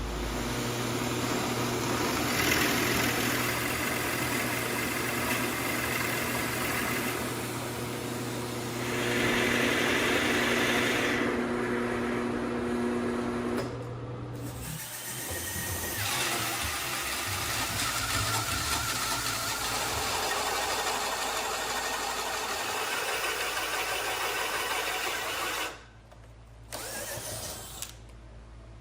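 Power tool motors running in several stretches, each a steady hum with noise from cutting or drilling, changing abruptly between stretches, with a quieter spell near the end.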